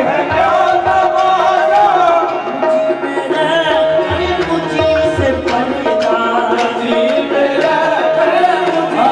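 Live qawwali: a male lead voice singing a ghazal over a sustained reed drone and tabla strokes.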